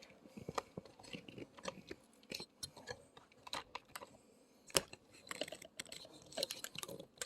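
Faint scattered clicks, taps and rustles with no steady sound under them, and one sharper click a little over halfway through.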